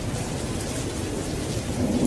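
Steady rain falling with a low, continuous rumble of thunder.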